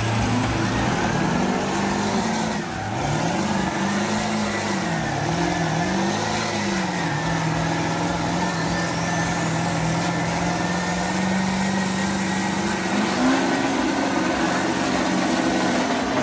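High-horsepower truck engines revving hard under load in a tug of war. The revs climb about a second in, rise and fall a few times, then hold high and steady, stepping up again near the end.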